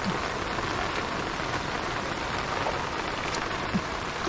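Steady, heavy rain falling, an even hiss with no let-up.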